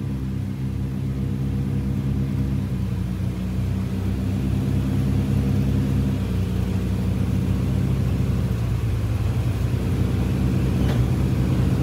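Twin piston engines and propellers of a Britten-Norman Islander heard from inside the cockpit, running steadily with their pitch stepping down a few times as power comes off during the landing rollout.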